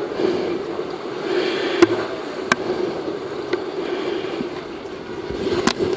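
Muffled sea-shore water noise that swells and eases over a steady low hum, with a few sharp clicks scattered through it.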